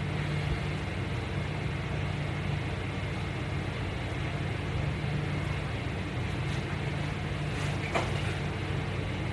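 Steady low background hum of a room, like a running air conditioner or fan, with a faint click about eight seconds in.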